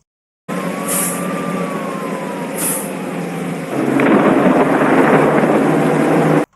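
Sound effect of a tank: heavy engine rumble with hissing, growing louder and rougher about halfway through, starting and cutting off abruptly.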